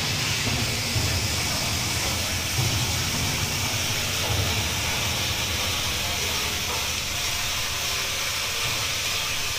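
Tap water running steadily onto hands and the tiled floor: a constant hiss with a low splashing rumble underneath.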